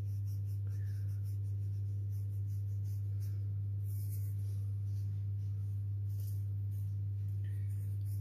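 Fingers sprinkling salt and black pepper over raw meat on a cutting board make a faint rustling, over a steady low hum.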